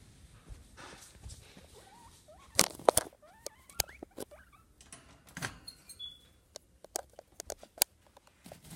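Guinea pigs squeaking: a string of short rising and falling squeaks about two to four seconds in, among sharp clicks and knocks.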